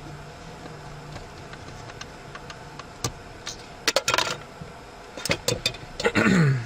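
Plastic center console latch parts and screws being handled: scattered sharp clicks and rattles that start about halfway through and come in two quick clusters, followed near the end by a short loud scrape that falls in pitch.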